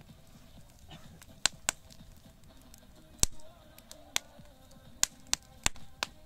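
Fire burning in a metal fire bowl, crackling with sharp, irregular pops, the loudest about three seconds in.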